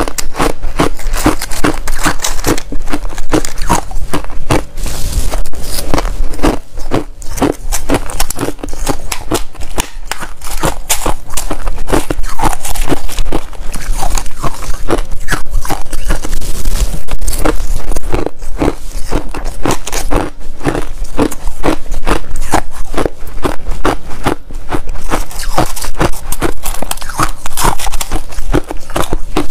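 Hard clear ice being chewed, close-miked: a dense, irregular run of sharp cracks and crunches as the pieces break between the teeth.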